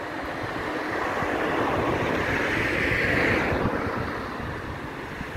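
Outdoor wind buffeting the microphone, with a broad rushing sound that swells to a peak about three seconds in and then fades.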